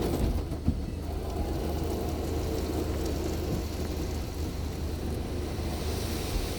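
Automatic car wash running: a steady low mechanical hum under the even hiss of water spraying onto a car.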